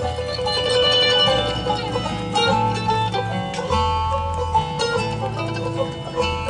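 A bluegrass band playing an instrumental passage: mandolin picking with banjo, guitar and bass, the bass holding long low notes underneath.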